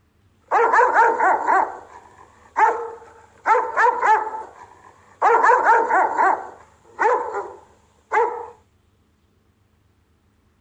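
Rottweiler barking in quick volleys, about six bursts of rapid barks with short gaps between them, stopping about nine seconds in. These are the deep, repeated warning barks of a guard dog.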